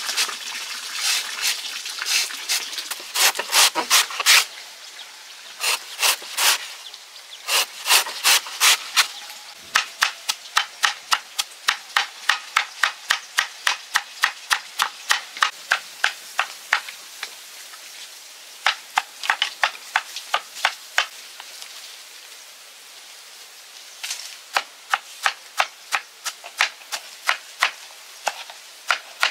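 Blade chopping in quick, even strokes, about two to three a second, in runs broken by short pauses.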